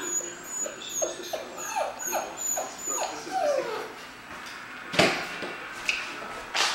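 F1B mini goldendoodle puppy whimpering: a string of about eight short whines, each dropping in pitch, over roughly three seconds. A sharp knock follows about five seconds in, and another near the end.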